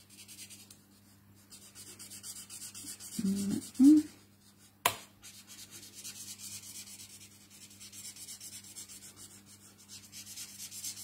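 Stampin' Blends alcohol marker nib rubbing back and forth on white cardstock while colouring in, a soft scratchy rubbing in quick strokes. A brief murmur comes a little over three seconds in, and a single sharp click about five seconds in.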